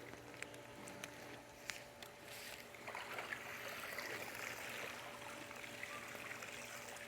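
Water trickling and splashing off a pool vacuum hose as it is pulled out of the pool, starting about two and a half seconds in. A few light clicks come before it.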